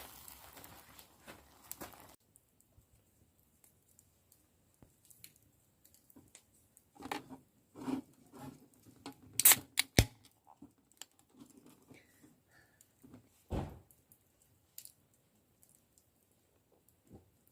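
Close handling sounds: scattered clicks, taps and rustling, with a cluster of sharp clicks about ten seconds in and a dull knock a few seconds later.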